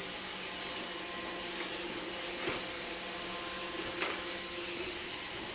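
Roomba robot vacuum running with a steady whirring hum, and two light knocks about two and a half and four seconds in.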